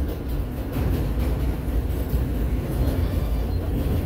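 NYC subway train running along an elevated track, heard from inside the car as a steady, deep rumble with a faint rattle of the wheels.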